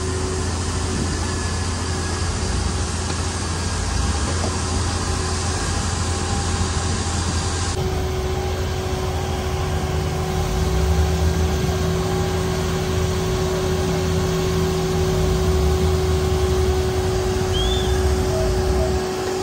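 Fire truck's engine and water pump running steadily under load, a constant low drone with a rushing hiss of water from the hose stream.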